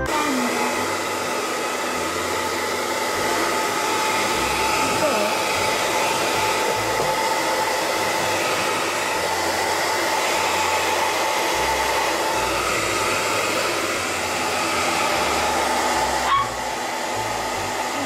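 Hair dryer running steadily: a rush of blown air over a constant motor whine. A brief knock sounds about sixteen seconds in.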